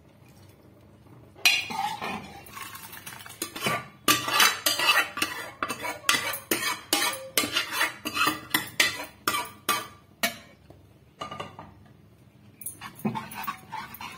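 Metal spoon scraping and knocking against a steel pot as boiled chickpeas are emptied out of it. It is a dense run of quick, sharp clinks starting about a second in, with a pause of a couple of seconds near the end before the clinking starts again.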